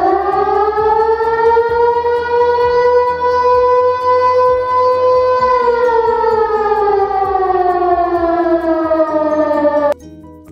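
A siren winds up, holds a steady wail for about five seconds, then winds slowly down in pitch and cuts off abruptly near the end.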